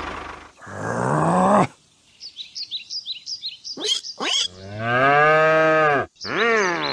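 Cow mooing: three long low calls, the longest in the second half, with a quick run of high bird chirps about two seconds in.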